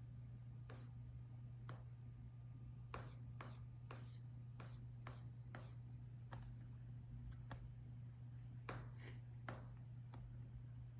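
Laptop keyboard typing, slow and uneven: single key clicks at irregular spacing, with a quicker run in the middle and another short one near the end, over a steady low hum.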